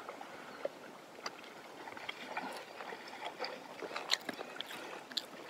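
Quiet outdoor background with faint, scattered small clicks and taps at irregular moments.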